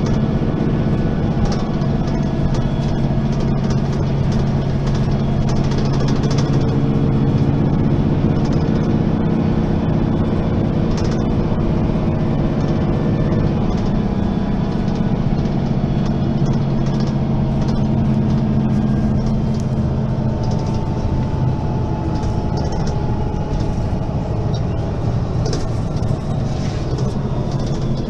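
Mercedes-Benz Citaro Facelift city bus's diesel engine running steadily, its pitch shifting a couple of times partway through, with a faint high whine falling in pitch near the end.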